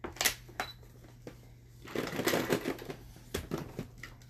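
Tupperware pull-cord food chopper being pulled, its blades knocking and crunching through a whole onion and whole garlic cloves. There are sharp clicks from the pulls, with a dense crunching burst about two seconds in, the loudest part.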